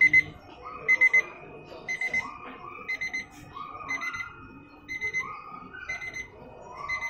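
Wooden digital alarm clock sounding its alarm: a quick burst of three or four high-pitched electronic beeps repeating about once a second.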